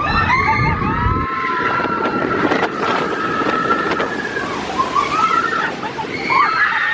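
Splash Mountain log flume riders screaming over a steady rush of wind and water as the log plunges down a drop. The screams rise and fall in pitch and crowd together near the end.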